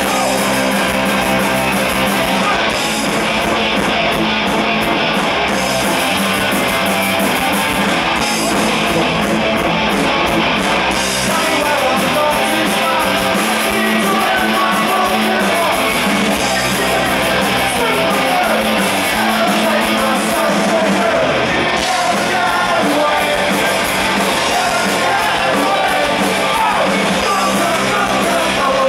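Punk rock band playing live: electric guitars and drums with a lead vocal.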